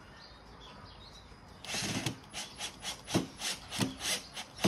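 Cordless drill driving a screw into the fan's plastic motor housing, run in short spurts about three times a second, starting about two seconds in after one longer run.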